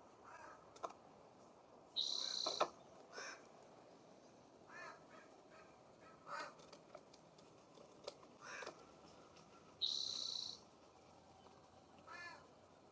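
Birds calling: two louder, longer high-pitched calls about two seconds in and again near ten seconds, with several short, softer calls between them.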